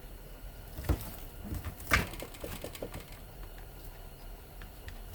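Scattered clicks and knocks of hand tools and metal parts being worked while stripping an electric fan motor's windings, with two sharper knocks about one and two seconds in, over a faint steady low hum.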